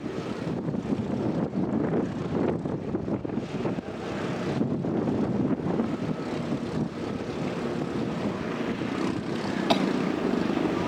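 Boat engine running with a steady drone and a rushing noise, unbroken throughout, with one short click near the end.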